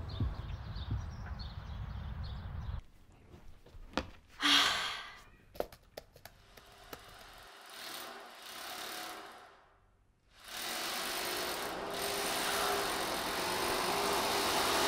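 A short breathy sigh about four and a half seconds in, then a few light taps on a laptop keyboard. From about ten seconds in, a steady rushing machine-like noise starts and keeps building.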